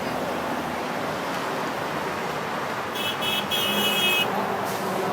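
Steady freeway traffic noise. About three seconds in, a vehicle horn sounds two short toots and then a longer one.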